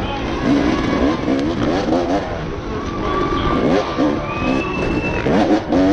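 On-board sound of an endurocross dirt bike's engine, revved up and down in repeated short throttle blips as the bike picks its way slowly through a rock section.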